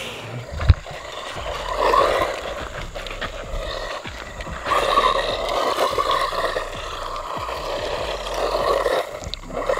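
A small brushless 4WD RC buggy (RLAARLO 1/14) driving across loose gravel: the motor and tyres on stones make a steady rushing scrape that swells about two seconds in and again from about five to nine seconds. A sharp thump comes less than a second in.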